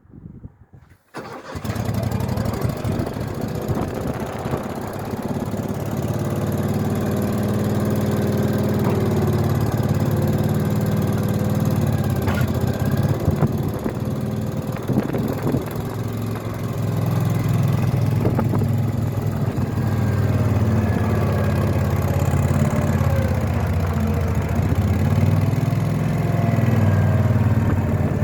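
Skid steer loader engine starting about a second in, then running steadily with its level rising and falling a little.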